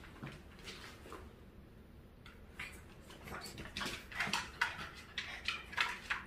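Dogs and a puppy play-wrestling on a hard floor: scuffling of paws and bodies in quick, irregular bursts. It starts after a quieter first couple of seconds and grows busier toward the end.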